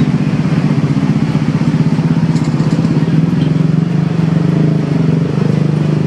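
Battered mushroom strips deep-frying in a wok of hot oil, sizzling steadily, under the louder, steady low hum of an idling engine.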